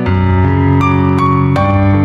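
Background music: a slow keyboard melody of single notes over held chords.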